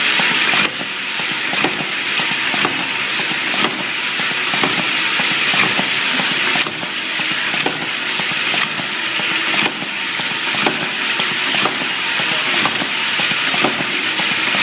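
Cap-pressing machine running, with a steady mechanical rattle and a sharp click about once a second as it cycles.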